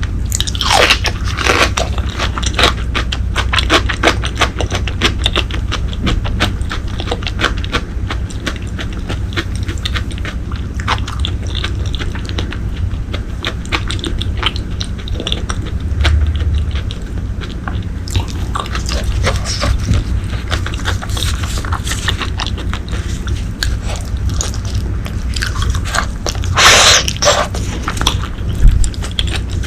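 Close-miked chewing and biting of braised pork leg: a dense run of wet mouth clicks and smacks. A louder, longer noise stands out near the end.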